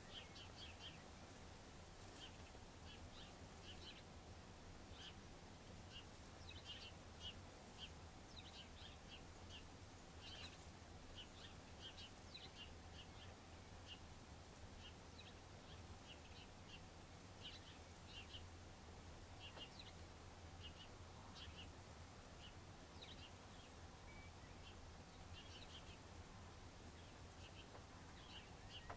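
Faint, short, high chirps from small birds, many of them scattered irregularly throughout, over a faint steady low hum.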